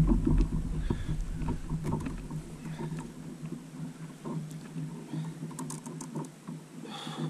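Sounds of a plastic fishing kayak on calm water during a fish fight: a strong low thump at the start, then small knocks and clicks from the hull and fishing gear over a steady low hum.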